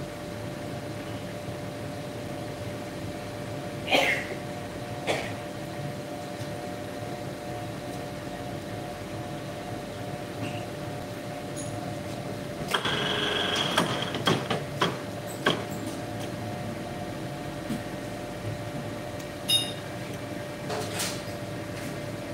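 Steady hum of workshop machinery, with scattered metal clicks and knocks as a steel indexing fixture and machine vise are handled during setup. About 13 seconds in, a short, louder rattling scrape with a ringing note.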